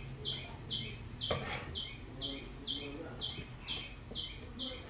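A bird repeating one short, high chirp at an even pace of about two a second. About a second in comes a single knife chop on a wooden chopping board.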